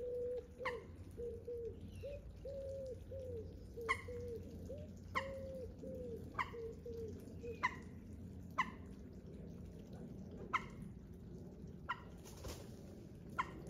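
A bird giving a run of short, low cooing notes for roughly the first half, while drops of water plop onto water about once a second.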